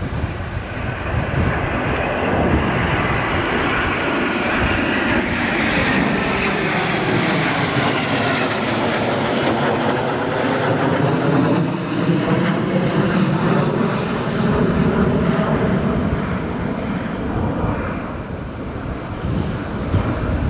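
Aircraft flying low overhead: a loud rushing engine noise that builds, peaks about halfway through and fades away, sweeping down in pitch as it passes.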